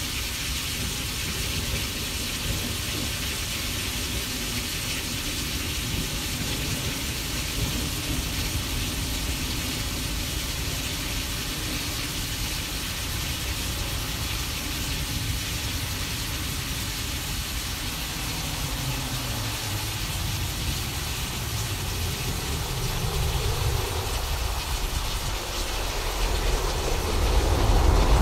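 Simulated thunderstorm: steady hiss of rain, with a low rumble of thunder building in the second half and swelling near the end.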